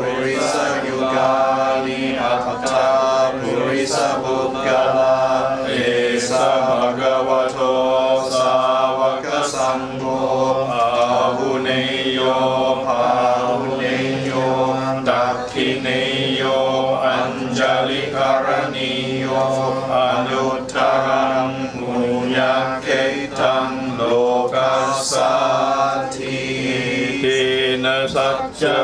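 Buddhist chanting in Pali, led by a monk into a microphone: a continuous chanted recitation of the verses in praise of the Sangha, running on without pauses.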